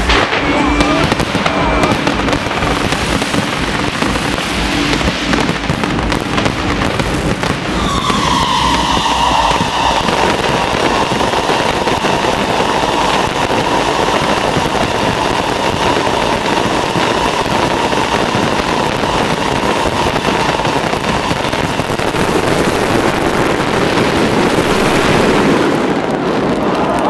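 Fireworks show bursting and crackling continuously, a dense run of bangs. About eight seconds in, a steady high whine joins and holds to near the end.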